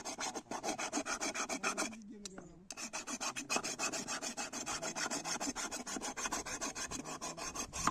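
Rapid, even rasping strokes, about eight a second, like a tool scraping or filing, with a short break about two seconds in.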